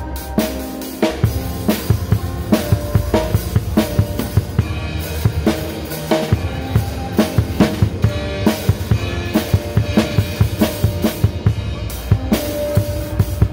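Acoustic drum kit played with sticks: a busy pattern of snare strokes and bass-drum kicks, with held notes from other band instruments underneath.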